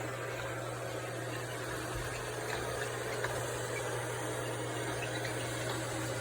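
eufy 11S Max robot vacuum running: a steady hum of its suction fan and motor with a wide hiss of airflow and brush noise.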